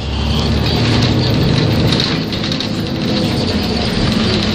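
City bus's diesel engine running under way, heard from inside the cabin, with a steady hiss of road noise. The engine grows louder in the first second.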